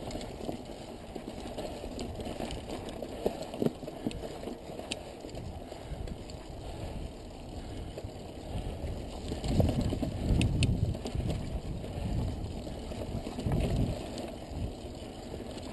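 Mountain bike rolling slowly over loose rock and dirt: a steady low rumble of tyres on the trail, with scattered sharp clicks and rattles from the bike. There are a few louder low thumps around ten seconds in.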